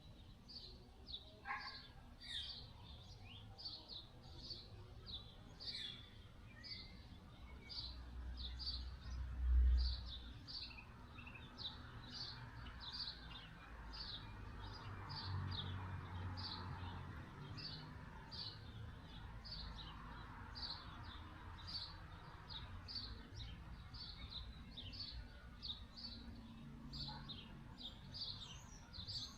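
A bird chirping over and over, a short high chirp about one and a half times a second, over faint outdoor background noise. A brief low rumble comes about ten seconds in.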